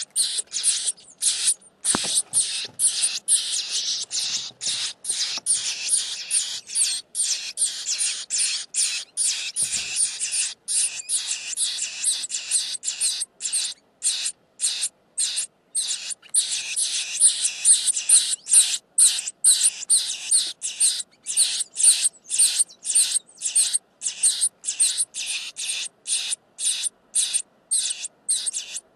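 Nestling birds begging: a rapid, unbroken series of high-pitched calls, about three a second.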